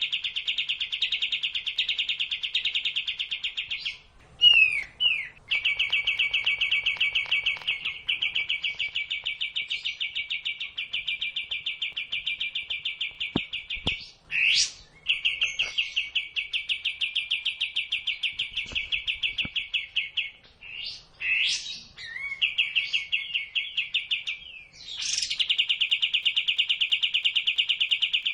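A kapas tembak songbird singing in long, rapid rattling trills, each running several seconds, broken by a few short sweeping whistle notes.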